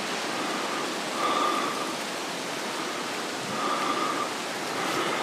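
Steady rush of running water at a small spring-fed stone fountain, with a faint higher tone that comes and goes every couple of seconds.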